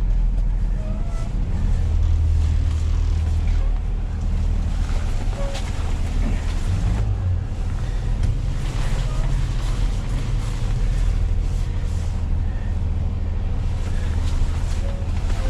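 Peterbilt rollback tow truck's diesel engine running as the truck drives slowly, heard from inside the cab: a steady low rumble with road and wind noise over it.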